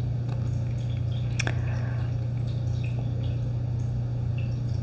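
Steady low background hum, with faint light clicks and rustles of playing cards being handled, including one sharper click about a second and a half in.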